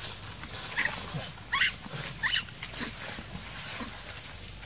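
Two short, high-pitched macaque squeals, about a second and a half and two and a quarter seconds in, with a few fainter calls around them.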